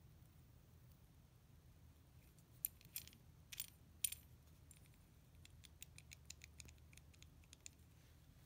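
Faint metallic clicks and ticks from the KTM 690 intake rocker arm being handled and its roller turned by hand; the roller's bearing has failed. A few sharper ticks come between about two and a half and four seconds in, then a run of small quick clicks.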